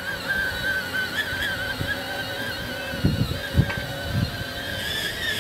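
Electric drive motors and gearbox of a battery-powered ride-on Ford pickup toy truck running across grass, a steady whine that wavers slightly in pitch. A few dull low thumps come about three seconds in.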